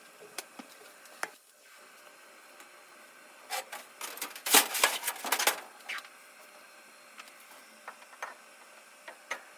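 Clatter of hard parts being handled and set down: a few light clicks, then a burst of knocks and rattles from about three and a half to six seconds in, then a few more faint clicks.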